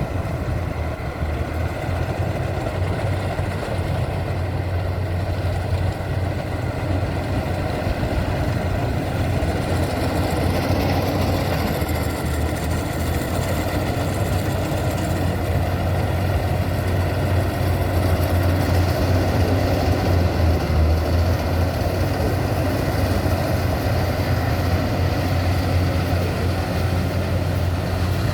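Maxxi Bimo 102 combine harvester running steadily with a deep engine hum, getting slightly louder about ten seconds in.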